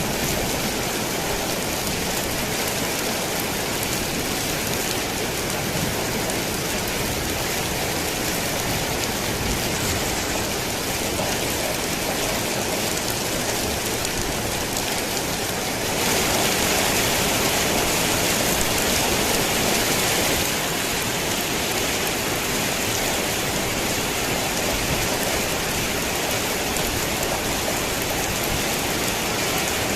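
Rain falling on a tin roof, a steady pattering hiss that turns louder for about four seconds just past the middle and then drops back.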